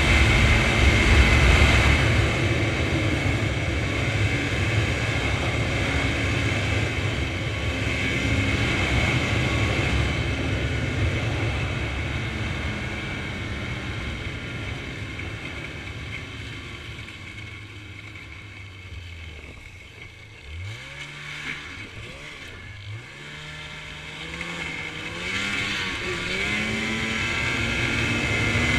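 Ski-Doo snowmobile engine running at speed with wind noise. About two-thirds through, the throttle eases and the sound drops away, then the engine revs up in a few quick rising surges and builds back up to speed.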